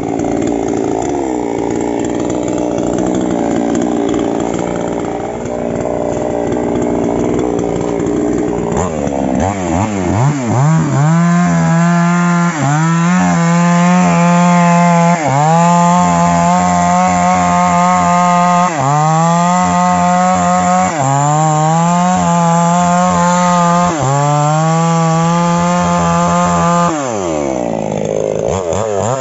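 Mini Falcon two-stroke chainsaw cutting into a tree trunk. For the first nine seconds it runs at lower, uneven revs. Then it is held at full throttle, its pitch dipping briefly every two to three seconds as the chain bites into the wood, then recovering.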